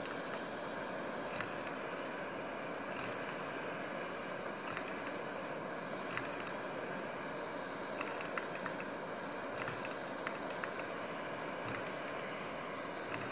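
Model multi-cylinder Stirling engine running at full speed: a steady mechanical whir with light clicks every second or two, some coming in quick clusters.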